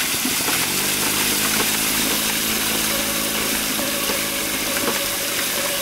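Bicycle tyres churning and splashing through muddy puddle water, a steady wash of spray noise. A steady engine-like hum joins about half a second in and fades out near the end.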